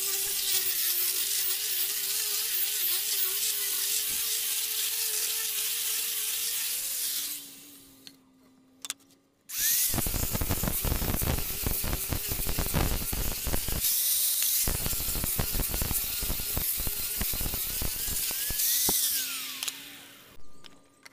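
Electric angle grinders with sanding discs sanding a wooden board. One runs with a steady whine for about seven seconds and stops; a second starts up a couple of seconds later and sands with rapid clicking, then winds down with falling pitch near the end.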